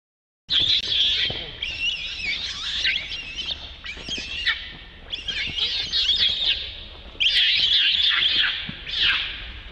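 A baby macaque screaming in high, wavering cries, in repeated bouts, starting about half a second in and loudest near the end.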